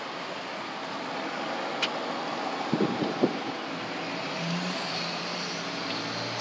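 A motor vehicle running under a steady rushing noise, with low steady tones coming in after about four seconds. A few short knocks and rubs sound about three seconds in.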